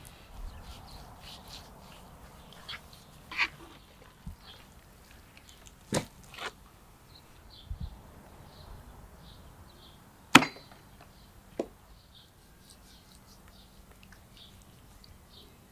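Kitchen-prep handling sounds on a wooden table: a scattering of sharp knocks and taps as raw lamb fat and utensils are handled and set down on wooden boards, the loudest knock about ten seconds in. Faint short high chirps sound in between.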